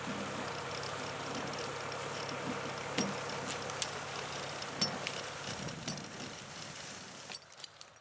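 John Deere 2750 farm tractor's diesel engine running steadily during a winch pull, with scattered sharp clicks and snaps. The sound drops away near the end.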